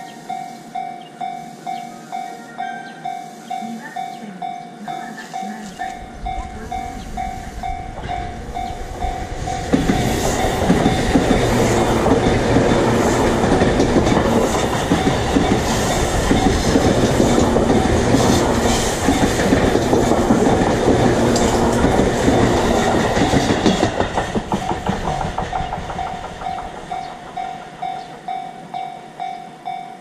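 Japanese level-crossing warning bell ringing in quick, even strokes while a Tobu Tojo Line electric commuter train passes close by. The train's wheels rumble and clatter over the rail joints, building from about six seconds in and loudest for about fourteen seconds, then fading. The bell keeps ringing after the train has gone.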